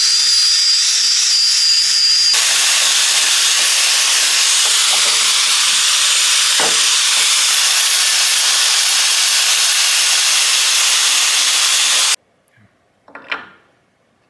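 A drill spins a flap-disc sanding drum inside the lower control arm's ball-joint bore, deburring it. It starts as a steady high whine, then turns into a harsher, even sanding hiss. It stops suddenly about twelve seconds in, and a short faint knock follows near the end.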